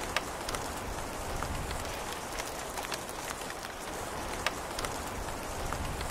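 Steady rain falling, with scattered sharper drop hits; two stand out, just after the start and about four and a half seconds in.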